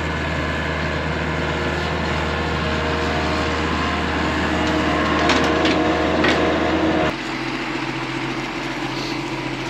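Sumitomo compact excavator's diesel engine running as it digs, with a few knocks between about five and six seconds in. About seven seconds in the sound cuts abruptly to a quieter steady engine hum.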